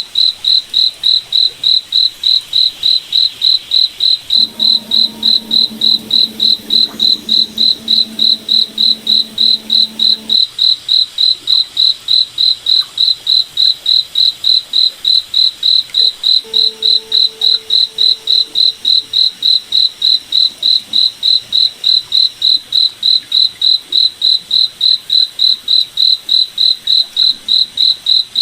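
Cricket chirping steadily: a high, evenly pulsed chirp about three times a second. Faint low tones come and go underneath.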